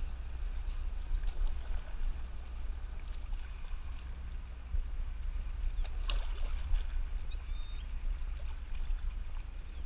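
Kayak paddle strokes dipping and splashing in lake water, over a steady low rumble.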